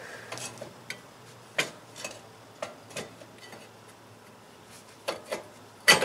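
Scattered light clicks and knocks of metal parts being handled and fitted at a car's rear wheel hub and brake drum, one every half second or so, then a few sharper ones near the end, the loudest just before it ends.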